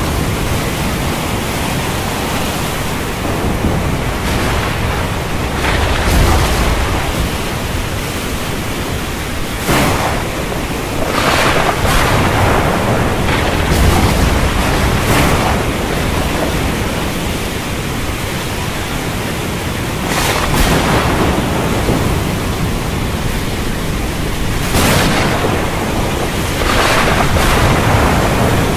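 Thunderstorm ambience: a steady rush of rain, wind and rough sea. It swells every few seconds, with deep thunder rumbles about six and fourteen seconds in.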